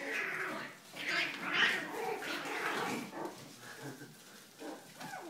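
Puppies whining, a run of thin cries over the first three seconds that grows quieter after.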